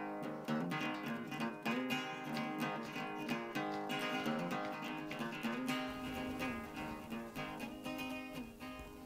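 Background music on acoustic guitar, plucked and strummed, fading out near the end.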